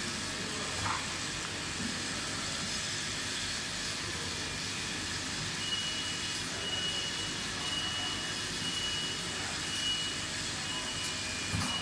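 Stick lip balm filling and capping line running, with a steady whirring hiss from its conveyor and cooling tunnel. About halfway through, a high electronic beep starts repeating roughly once a second.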